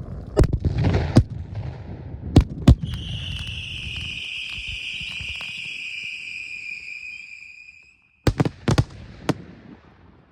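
Fireworks display: several sharp bangs of bursting shells over a low rumble. Then comes a long shrill whistle of about five seconds that sinks slightly in pitch, and near the end a quick cluster of four bangs.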